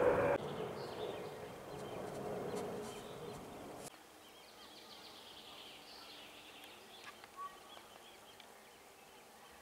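Outdoor woodland ambience. A steady hum of distant noise for the first four seconds stops abruptly at a cut, leaving a quiet background with faint bird chirps.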